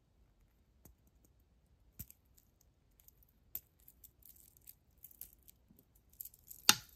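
Sparse small clicks and clinks of a rhinestone costume jewelry piece being handled and turned over, with one sharper click near the end.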